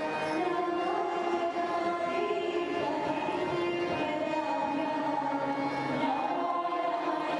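Devotional bhajan singing (nama sankeerthanam) in Carnatic style, voices holding long notes and gliding between them without a break.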